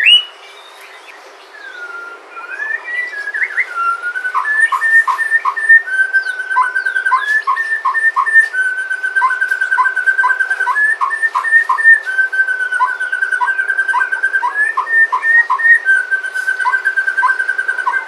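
White-rumped shama singing. About two seconds in it starts a rising whistled phrase, then a long run of clear held whistles, each broken by quick sharp lower notes in a fast repeating rhythm.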